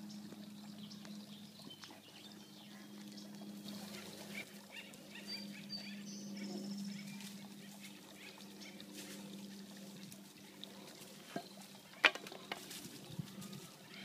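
Pond water trickling and lapping over a steady low hum, with faint bird chirps around the middle. A single sharp knock sounds about twelve seconds in.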